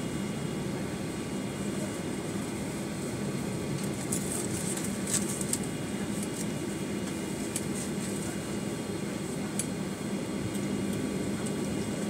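Steady cabin noise inside a Boeing 737-900ER taxiing, its CFM56-7B engines at idle: an even rush of air with a low hum and faint high whines. A few light clicks and rattles around the middle.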